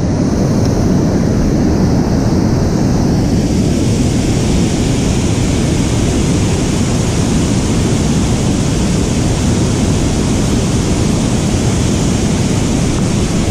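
Steady rush of river water pouring over a dam spillway and through the rapids below it, with wind rumbling on the microphone.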